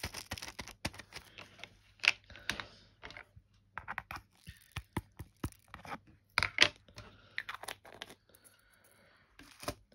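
Small plastic bags of diamond-painting drills being handled: plastic crinkling and a scatter of small sharp clicks and rattles from the tiny resin drills. Louder crinkles come about two seconds in and again past six seconds.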